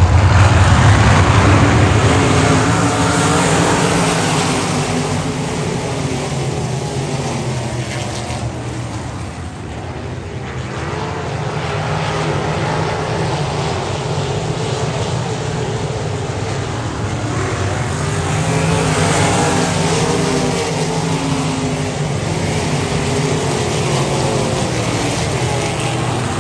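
Several winged sprint cars' V8 engines racing on a dirt oval, with pitch rising and falling as they go through the turns. The pack is loudest at the start, fades about a third of the way in, and comes back loud again about two-thirds through as it laps past.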